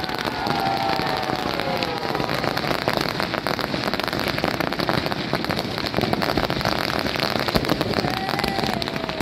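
Firecrackers crackling in a dense, continuous rapid patter around a burning effigy, with a few short whistling tones near the start and again near the end.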